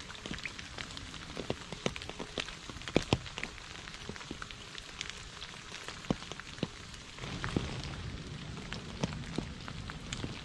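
Rain falling into a shallow puddle on a leaf-covered path: a steady hiss of rain with many separate close drops landing as sharp, irregular plinks. It gets a little louder about seven seconds in.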